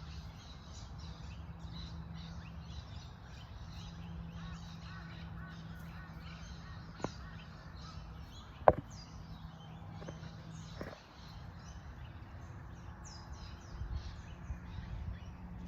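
Many birds chirping and calling together in a continuous chorus over a steady low hum. Three sharp knocks stand out, the loudest about nine seconds in.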